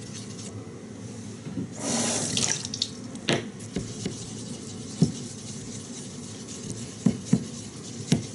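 A Botan nagura block scrubbed back and forth on the wet face of a natural Kyoto awase toishi water stone, a steady gritty rubbing. There is a brief rush of water about two seconds in, and several sharp clicks later on.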